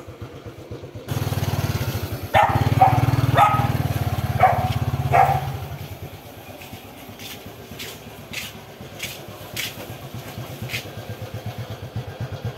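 A small motorcycle engine running with a low pulsing beat, getting louder about a second in as the bike is ridden forward, then easing off after about six seconds. A dog barks several times over the engine in the loud stretch, and a string of sharp clicks follows in the second half.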